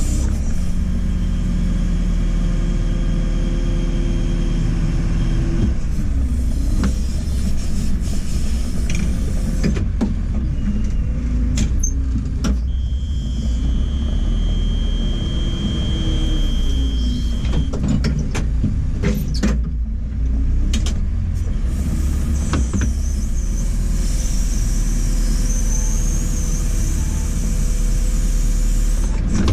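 JCB 4CX backhoe loader's diesel engine running under working load as the backhoe digs, its pitch rising and falling with the throttle. A high steady whine comes in for several seconds midway, and a few sharp knocks sound from the bucket and machine.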